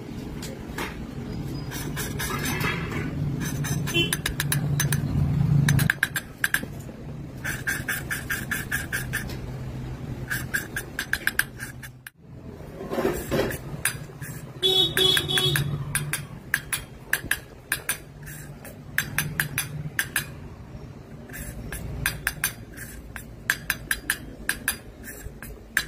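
Metal hand tools repeatedly tapping and clinking against a cylinder head during repair work, in quick runs of light strikes over a steady low hum.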